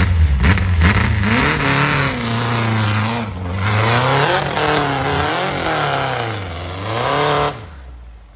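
Engine of a two-wheel-drive tube-frame off-road buggy revving hard under load on a steep dirt hill climb, its pitch rising and falling again and again as the throttle is worked. The engine sound drops away abruptly near the end.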